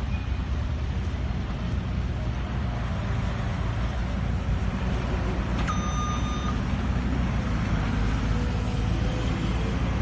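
Steady low diesel rumble of a wheel loader working amid passing road traffic. A single high electronic beep, under a second long, sounds about six seconds in. Near the end an engine note slowly rises.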